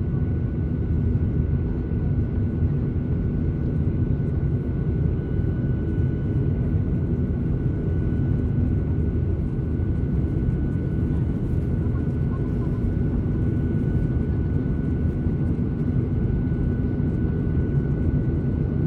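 Steady cabin noise of a Boeing 737-800 climbing after takeoff, heard inside the cabin over the wing: a low, even rumble from its CFM56 engines and airflow, with a faint steady high whine.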